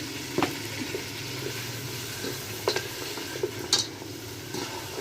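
Chicken pieces sizzling in a pot of tomato sauce while a spoon stirs them, knocking sharply against the pot three times.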